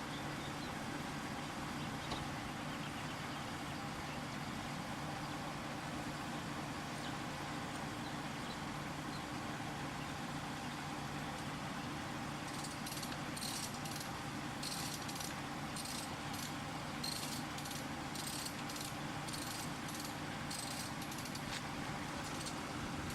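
An engine running steadily at idle, a constant low hum. From a little past halfway, a run of short, high chirps sounds over it at irregular intervals.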